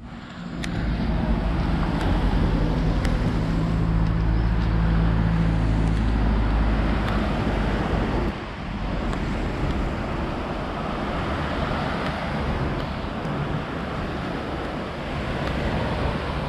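Small waves breaking on a sandy beach, with wind on the microphone. Over the first half a low steady rumble sits under the surf and stops abruptly about eight seconds in.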